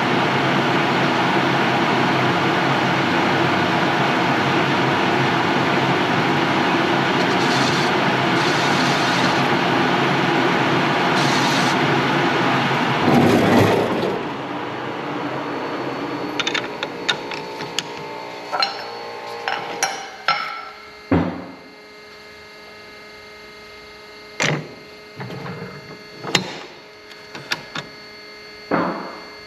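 A grinder running steadily as it cleans up fresh welds on a steel sprocket plate, then switched off about halfway through and winding down. After that come scattered sharp metallic clinks and knocks of the part and tools being handled.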